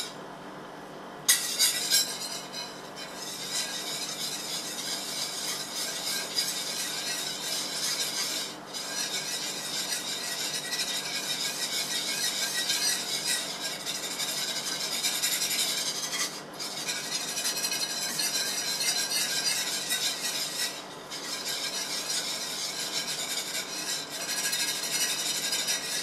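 Wire whisk beating powdered sugar into warm milk in a saucepan for a glaze: a fast, steady scratching of the wires against the pan, broken by a few short pauses. There are a couple of clanks about a second in.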